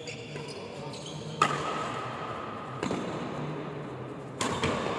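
Badminton rackets striking a shuttlecock during a doubles rally: three sharp hits about a second and a half apart, the first the loudest, over a steady low hum.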